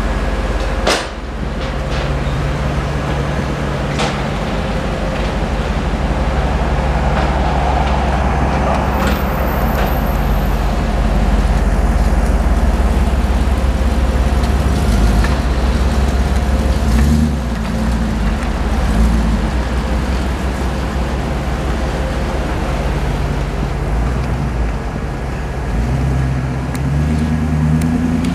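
A 1998 Jeep Grand Cherokee's 5.9-litre V8 running as the SUV is driven out of a shop bay and away down the street, a steady low engine rumble with the pitch rising as it pulls away near the end. Street traffic runs underneath, with a couple of sharp clicks about one and four seconds in.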